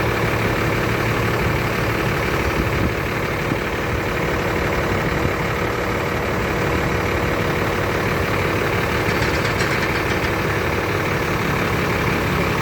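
Road roller's diesel engine running steadily at an even, low speed.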